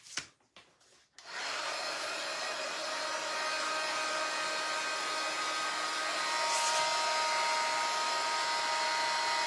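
Handheld electric hot-air blower switched on and running with a steady whirring hiss, starting about a second in.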